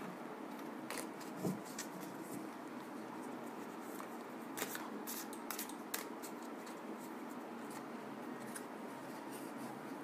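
A deck of tarot cards being shuffled by hand, faint, with scattered soft clicks and snaps of the cards.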